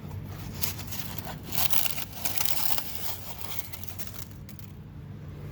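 Irregular rustling and crinkling handling noise in bursts, busiest in the middle, over a steady low hum.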